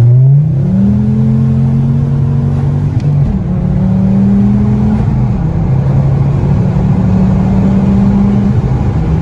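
Straight-piped Ford Focus ST's turbocharged five-cylinder engine and exhaust heard from inside the cabin on the move. The pitch climbs as it accelerates about a second in, then holds a loud, steady drone with a few small shifts in pitch.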